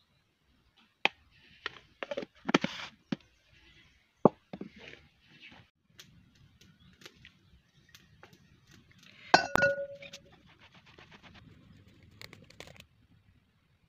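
A metal spoon clinking and knocking against a stainless steel mixing bowl while semolina and herbs are stirred: a scatter of sharp clinks, then one louder, ringing clink about nine seconds in.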